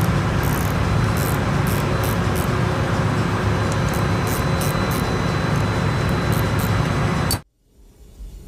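Steady, loud machinery din with a deep hum, the background noise of a ship's engine room, with light irregular metallic clicks from a hand tool working on the gear pump. The din cuts off abruptly about seven seconds in.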